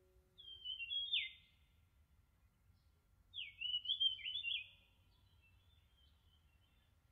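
Bird-like chirping song: two short phrases about two seconds apart, each with quick gliding notes that end in sharp downward sweeps.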